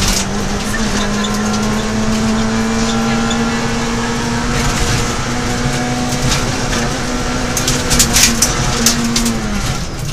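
Peugeot 106 XSi rally car's four-cylinder engine held at high revs on the throttle, heard from inside the stripped cabin. Near the end the note dips briefly as the driver lifts off, then picks up again. A burst of sharp clicks and rattles comes about three-quarters of the way through.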